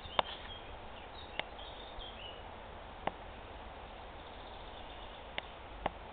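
Faint bird chirps over a steady background hiss, mostly in the first couple of seconds, with about five short sharp clicks scattered through.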